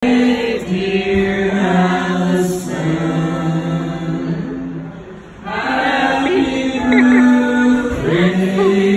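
Live singing with long held notes and band music from a small group: a singer with an acoustic guitar and an electric bass. The music drops away briefly about halfway through, then comes back in.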